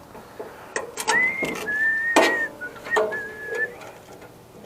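A person whistling a few held notes, with sharp clicks and knocks of tools and metal parts in between.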